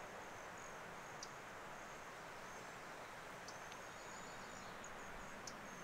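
Faint outdoor ambience: a steady hiss with a thin, high-pitched chirping that comes and goes, one longer chirp about three and a half seconds in, and two small ticks, one about a second in and one near the end.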